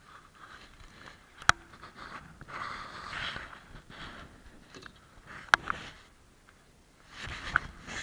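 Clothing rustling and rubbing against a body-worn camera as the wearer shifts about, with sharp clicks or knocks about one and a half seconds in, at five and a half seconds, and again near the end.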